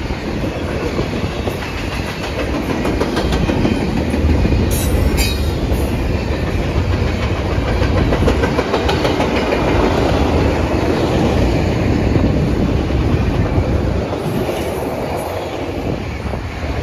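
Railroad cars rolling past close by, their wheels clicking over the rail joints in a steady clatter, with a brief high wheel squeal about five seconds in.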